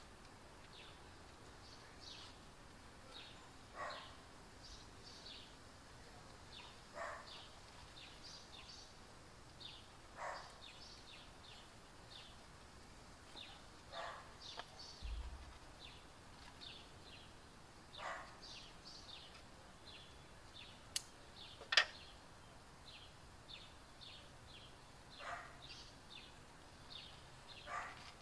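Faint outdoor ambience: a dog barking every few seconds, single barks, with small birds chirping throughout. Two sharp clicks come a little past the middle and are the loudest sounds.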